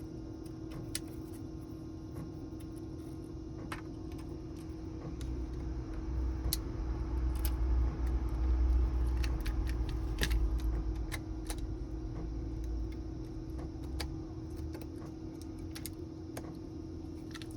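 Small, scattered clicks and taps of tools and smartphone parts being handled during a hands-on repair, over a steady hum. A low rumble swells up in the middle and fades again.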